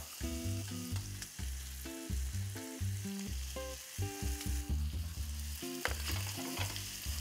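Spaghetti sizzling as it goes into a hot frying pan of oil, shrimp, garlic and dried chillies and is tossed with tongs. Background music with a bass line plays throughout.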